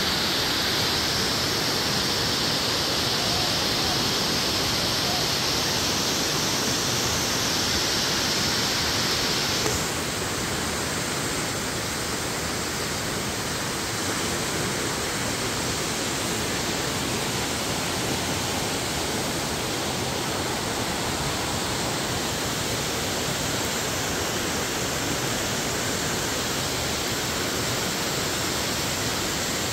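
Waterfall rushing with a steady, even noise; about ten seconds in it becomes a little quieter and duller.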